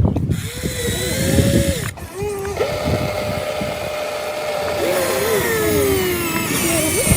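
Small electric motor of an RC construction machine whining as it works, its pitch holding, then dipping and sliding back up a couple of times. Rough scraping and crunching runs underneath, loudest in the first two seconds.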